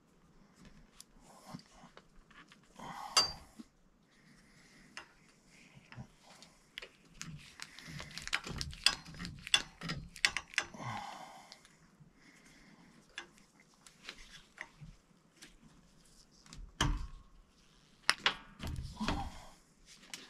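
Scattered metallic clinks and knocks of copper pipe and fittings being handled and fitted together on water heater supply piping, with a louder clank about three seconds in.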